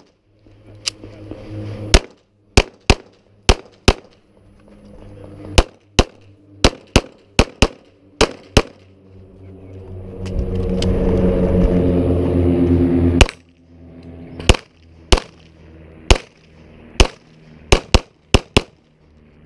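Glock 34 pistol shots, about twenty sharp, loud cracks fired mostly in quick pairs and short strings with pauses between. In the middle a loud steady rumble lasts about three seconds.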